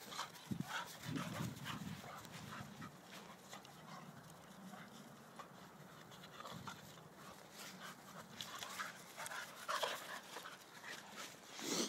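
Two dogs play fighting, an Alapaha Blue Blood Bulldog and a blue Staffordshire bull terrier: panting, with short scuffling noises throughout and a louder burst near the end.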